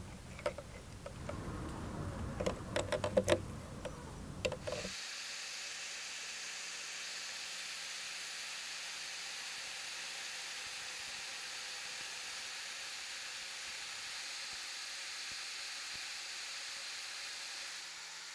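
Clicks and rattles as a cast brass rod is fitted and tightened in a drill's keyed chuck. About five seconds in, these give way to a steady hiss as the spinning brass rod is ground against a spinning abrasive disc, shaping its tip to a point.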